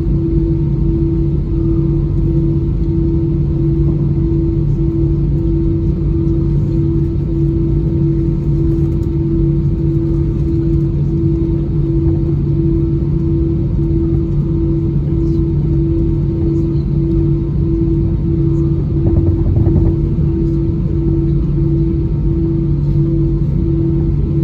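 Steady drone inside an airliner cabin on the ground before takeoff, with a strong hum that pulses about twice a second over a low rumble.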